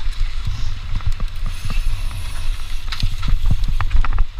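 Cross-country mountain bike descending a dry, rough dirt trail: a steady low wind rumble on the bike-mounted camera's microphone and the hiss of tyres on loose dirt, with frequent irregular clicks and rattles as the bike jolts over the ground.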